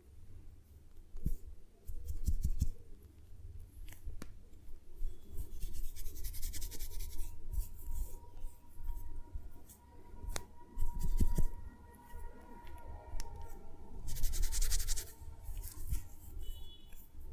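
Close-up massage handling sounds: hands rubbing and tapping on skin and hair, with soft thumps, scattered clicks and two longer rustling hisses, over faint background music.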